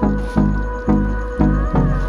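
Background music: an instrumental stretch of a song with a steady beat of about two beats a second, and no singing.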